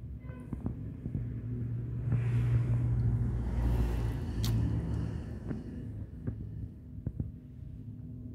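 Steady low rumble and hum, swelling for a few seconds in the middle, with a few short light clicks.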